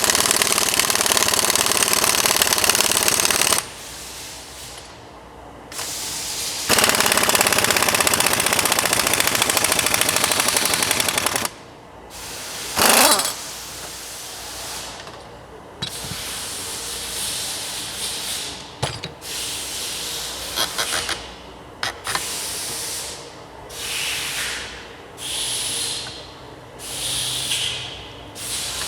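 Pneumatic impact wrench running in two long bursts of several seconds, then in shorter, quieter bursts, backing off a spring compressor to release the coil spring on a shock absorber strut.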